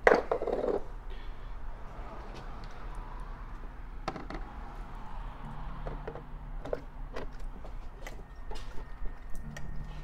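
Plastic housing of a Tesla Wall Connector being handled and pushed onto its wall mount: a loud knock and scrape about a second long at the start, then scattered sharp clicks and knocks as it is seated.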